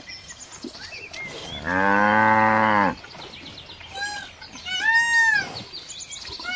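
A cow moos once, a single long low call about two seconds in. Toward the end come several shorter, much higher-pitched calls from another animal, each rising and falling.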